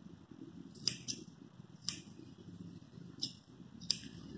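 Curved grooming scissors snipping the fur of a dog's ear: about five sharp snips at irregular intervals, over a low steady hum.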